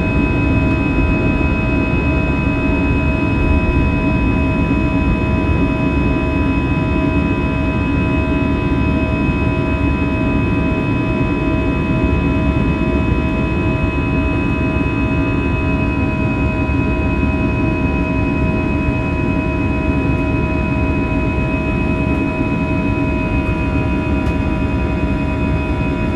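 Airbus A320's CFM56-5B turbofan engines at climb thrust heard from inside the cabin: a steady roar with several held tones over it, the fan's buzzsaw drone.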